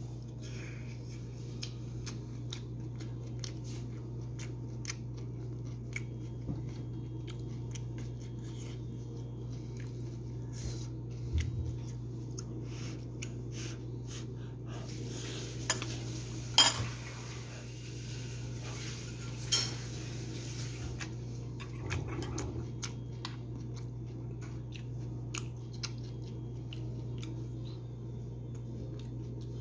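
A spoon clicking and clinking against a nonstick frying pan while fried rice is eaten from it, light taps throughout with one louder clink near the middle. A steady low hum runs underneath.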